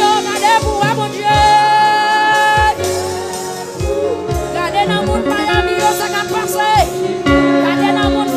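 A woman singing a Haitian Creole gospel hymn into a microphone, holding long notes, over instrumental accompaniment with a steady beat.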